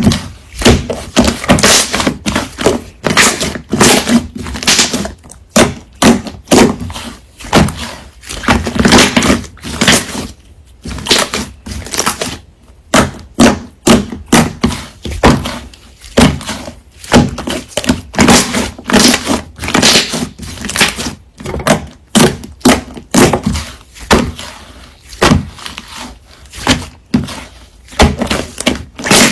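A rapid, irregular run of crunching, cracking and knocking: something hard and brittle being crushed and broken, several hits a second with short pauses.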